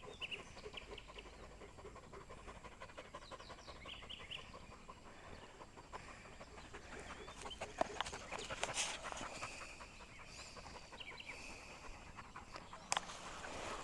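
A dog panting, with a few short clicks.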